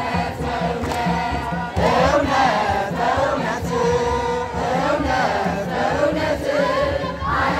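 A group of voices singing a chant together over a steady, evenly repeating drum beat, typical of Ethiopian Orthodox Timket (Epiphany) celebration singing.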